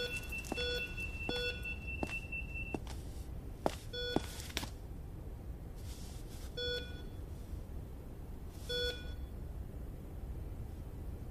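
Medical heart monitor beeping, the beeps slowing from about two a second to one every two or three seconds: a failing heartbeat in a dying patient. A thin steady high tone under the first beeps stops a few seconds in, and a few sharp clicks fall around the same time.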